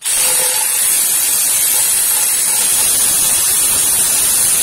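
A loud, steady hiss, strongest in its high part, that starts abruptly.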